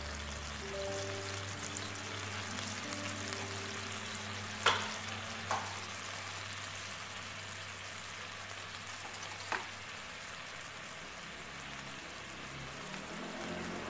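Thin sauce and water boiling rapidly in a wok, a steady sizzling and bubbling hiss. Three sharp clicks or pops stand out, two about five seconds in and one near ten seconds.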